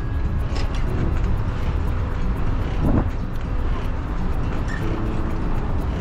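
Steady rumble of wind and road noise on a bicycle-mounted action camera while riding, with a short louder swell about three seconds in.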